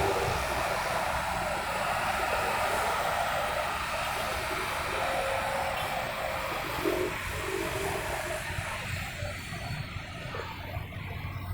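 Road traffic at a crossroads: a steady rumble and hiss of vehicles that is loudest at the start, as a passing vehicle draws away, and fades gradually to a quieter traffic hum toward the end.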